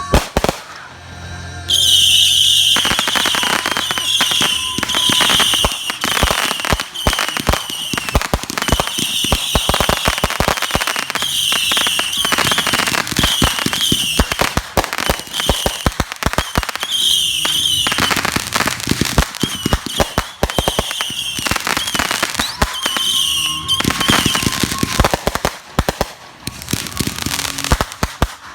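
Consumer fireworks going off in a rapid barrage: a dense run of sharp crackling pops with short, shrill whistles over them, starting about two seconds in.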